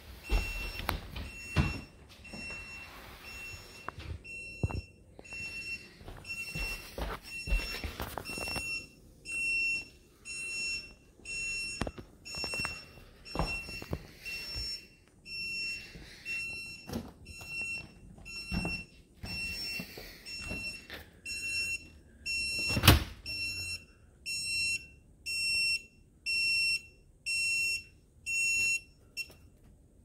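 Bosch 800 series refrigerator's electronic door alarm beeping, a high tone repeating about once a second, then stopping just before the end. It is going off with the doors closed, a fault the owner calls a defect. Knocks and bumps of hands pressing on the stainless doors sound between the beeps, the loudest about two-thirds of the way through.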